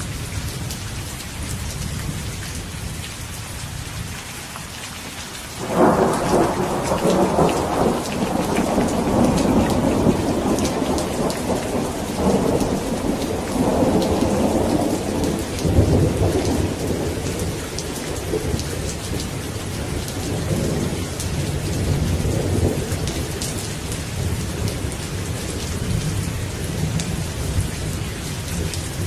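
Steady heavy rain with a low rumble of thunder. About six seconds in a thunderclap breaks out suddenly and rumbles for roughly ten seconds before it fades back under the rain.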